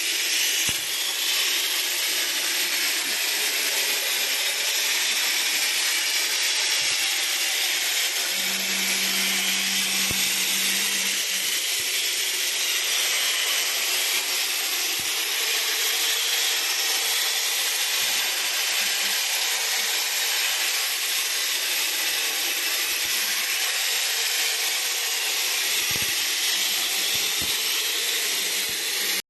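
Real stone paint spraying machine running: a steady hiss of the spray without a break. A faint low hum joins it for about three seconds roughly a third of the way in.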